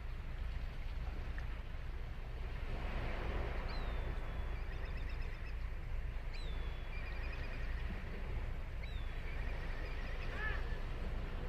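Black kite calling its whistled 'pee-hyoro-ro' about three times, each a thin falling whistle followed by a quavering trill, over the steady low wash of ocean surf.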